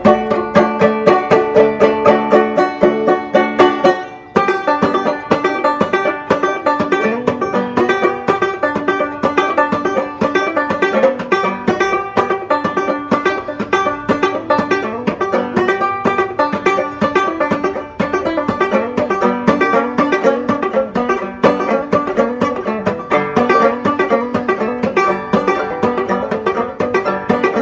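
Banjo played clawhammer style: a steady, rhythmic stream of plucked, ringing notes, with a short break about four seconds in before the tune picks up again.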